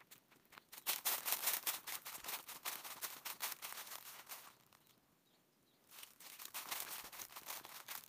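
Footsteps crunching through dry fallen leaves and twigs on a forest trail, a dense crackle that stops for about a second and a half midway, then starts again.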